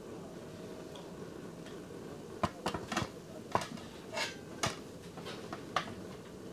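Portable camping stove hissing steadily under a simmering pot. Over it, from about two seconds in, a quick run of sharp clicks and clatters from cookware being handled.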